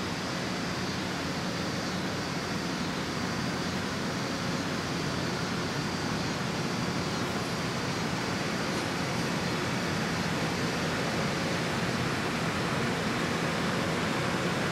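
LORAM rail grinder's diesel power units and fans running steadily: a constant rushing noise with a low hum beneath it, growing slowly louder.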